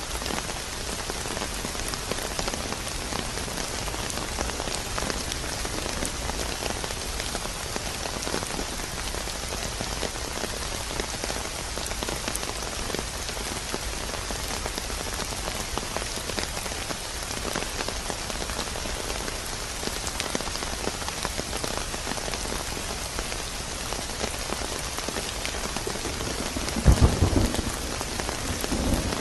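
Steady rain falling in an even hiss. About 27 seconds in a sudden thunderclap breaks in, followed by a second rumble of thunder.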